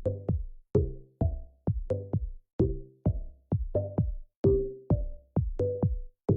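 Electronic music with a drum-machine beat: sharp, evenly paced hits, each with a short pitched ring.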